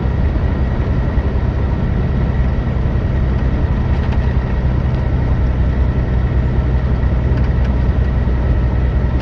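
Mack MP8 inline-six diesel of a heavily loaded semi truck pulling steadily under load. It runs smoothly with an even low drone: the intermittent misfire under load does not show up here.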